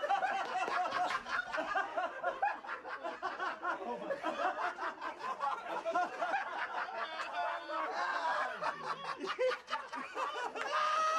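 A group of men laughing together.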